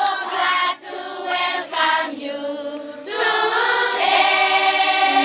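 A group of voices singing together like a choir, in long held notes.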